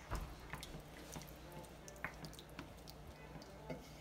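Wooden spoon stirring chicken pieces through thin curry broth in a stainless steel frying pan: faint wet squelches and a few light taps against the pan, spaced irregularly.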